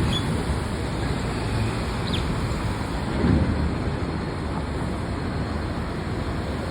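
Steady low outdoor rumble, like road traffic, with a small bird giving two brief high chirps about two seconds apart in the first half, and a short louder swell of rumble a little past the middle.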